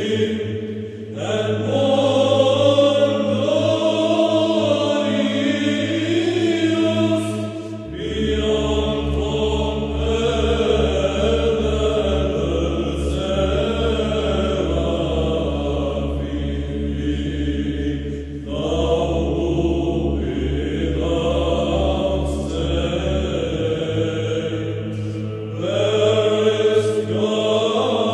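Orthodox hymn to the Theotokos (a Megalynarion) chanted by voices, the melody moving over a held low drone that shifts to a new pitch twice.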